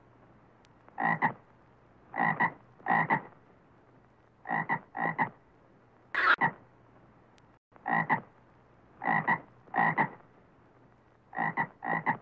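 A frog croaking: about eleven short croaks, each about a third of a second long, spaced irregularly and mostly coming in pairs.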